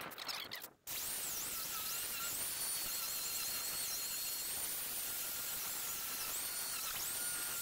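Angle grinder with a chain carving disc cutting into wood, its sound sped up eightfold into a steady high hiss with a thin whine that keeps dipping and recovering in pitch as the disc bites. The sound drops out briefly near the start.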